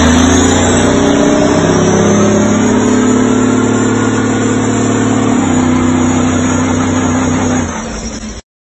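Semi-truck's diesel engine held at high revs during a burnout, the rear drive wheels spinning in place. The engine pitch climbs a little over the first couple of seconds, steps down about five seconds in, then the sound cuts off suddenly near the end.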